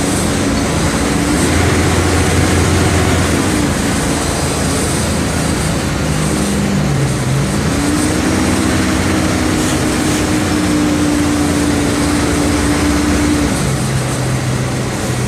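Mercedes-Benz OM 457 LA turbocharged, intercooled six-cylinder in-line diesel engine of an O-500MA bus running under way. Its note falls about three and a half seconds in, climbs again around eight seconds, holds, and falls again near the end.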